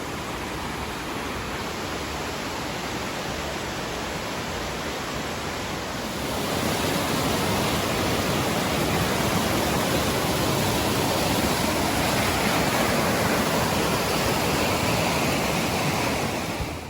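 Rushing river water pouring over rocks in a steady rush, louder from about six seconds in.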